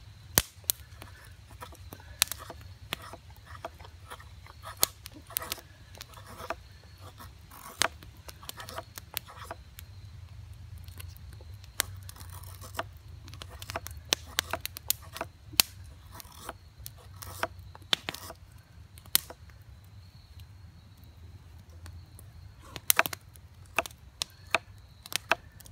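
Carbon-steel bushcraft knife (LT Wright Bushcrafter HC) carving a dry wooden bow drill spindle: irregular sharp snicks as the blade bites into and shaves the wood, with a quick cluster of cuts near the end.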